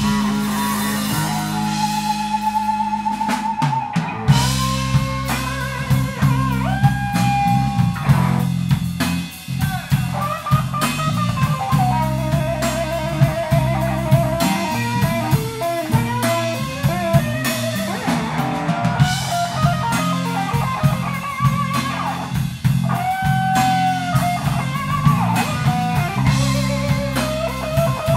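Live blues-rock trio: a worn Stratocaster-style electric guitar plays a lead with bent, held notes over electric bass and a drum kit. The bass and drums get fuller and heavier about four seconds in.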